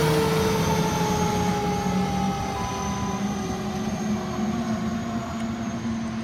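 Fire engine pulling away, its siren sounding one long tone that slides slowly down in pitch over the engine's steady running, the whole getting gradually quieter as the truck recedes.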